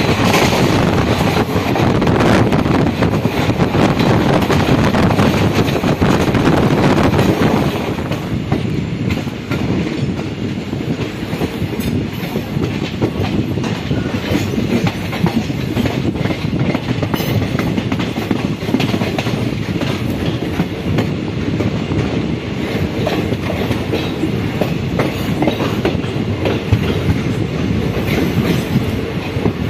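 Passenger train running at speed, heard from aboard the coach: a steady rumble and rush of wheels on rail with repeated clicks and rattles over rail joints. The rush drops a little about seven or eight seconds in, and the clicks stand out more after that.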